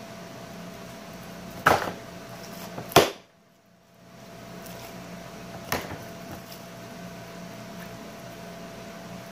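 Slime being stretched and pressed by hand, giving three sharp clicks about two, three and six seconds in, over a steady background hum. The hum cuts out for about a second after the second click.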